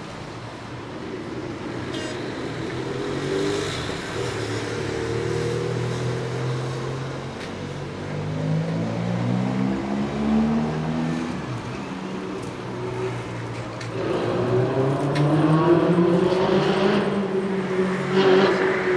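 Vehicle engines in slow, congested street traffic, rising and falling in pitch as they pull away and slow, loudest and rising near the end as they accelerate.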